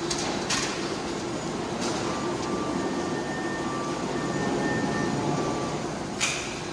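Steady industrial machinery rumble in a galvanizing shop, with sharp metallic clanks of steel being handled about half a second in, near two seconds and near the end, and a faint thin whine in the middle.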